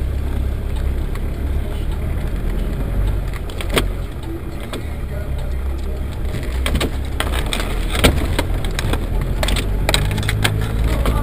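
Land Rover Defender 110 driving slowly off-road through tall grass, heard from inside the cabin: a steady low engine and drivetrain rumble with scattered knocks and rattles over rough ground, the sharpest about eight seconds in.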